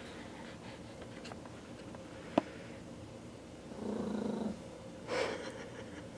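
Miniature schnauzer puppy growling: one low growl lasting under a second about four seconds in, with a brief noisy burst just after it. A single sharp click sounds a little before the growl.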